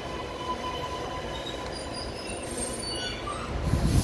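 Stationary Sydney Metro Alstom Metropolis train humming at the platform, with steady whining tones from its onboard equipment over a low rumble. A louder low rumble swells briefly near the end.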